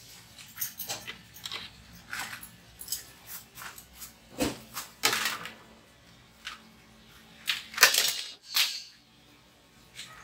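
Irregular sharp clicks, knocks and light clatter from hands handling objects, about a dozen separate ticks, with the loudest near the end.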